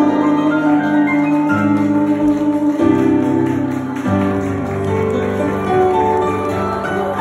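Stage keyboard playing held, bell-like chords that change every second or so.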